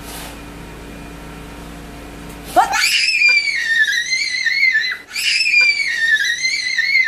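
A toddler shrieking with delight: two long, high-pitched squeals with a wavering pitch, starting about two and a half seconds in after a quiet stretch, with a short break between them.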